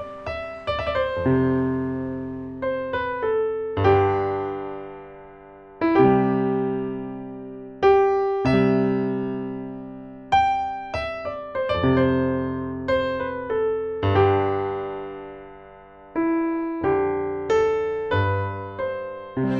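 Slow solo piano music: chords and single notes struck every second or two and each left to ring and fade.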